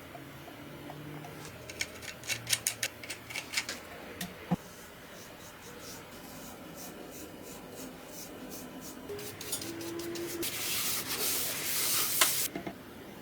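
Rubbing and sanding on a wooden workpiece: a quick run of light taps and clicks early on, then about two seconds of loud hissing scraping near the end that stops abruptly.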